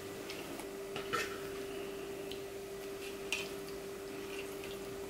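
A few light clinks and knocks against a cooking pot as whole sea bream are pressed into place in it, the two clearest about a second in and past three seconds, over a steady faint hum.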